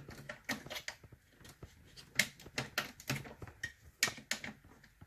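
Irregular light clicks and taps from hands handling small hard objects, about two or three sharp clicks a second.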